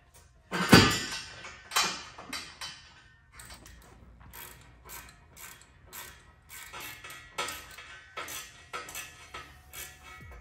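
Hand socket ratchet clicking in short, repeated runs of strokes in a car's engine bay, with a loud knock of metal about a second in.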